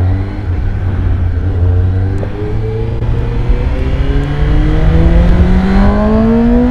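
Suzuki GSX-S750's inline-four engine accelerating through one gear on its stock exhaust, its pitch rising steadily.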